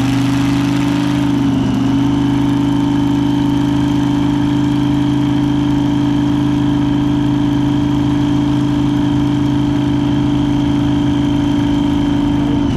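Supercharged small-block V8 of a Chevy S-10 minitruck running on a chassis dyno: engine speed climbs a little at first, then holds steady, with a faint steady high whine over it.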